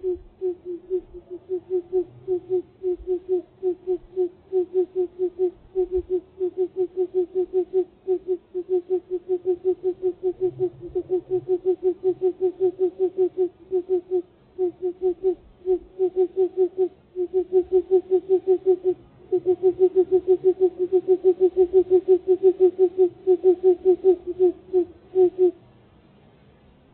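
Engine turning over on its starter motor without catching: an even-pitched starter whine pulsing about five times a second with the compression strokes, in several long cranking bursts with short breaks, then stopping. A cold hard start in freezing weather.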